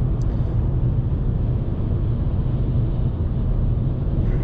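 Steady in-cabin noise of a 2019 Volkswagen Polo on the move: the 1.0 TSI three-cylinder petrol engine's low drone, which has a somewhat diesel-like sound, mixed with road and tyre noise.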